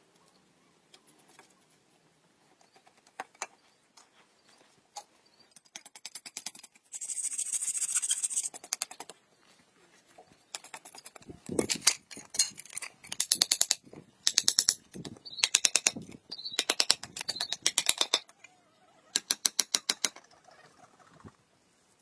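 A hand trowel scrapes on concrete and sand. There are a few faint scrapes first, then a two-second hissing scrape about seven seconds in. From about eleven seconds on it scrapes in short bursts of rapid raspy strokes, one to two bursts a second.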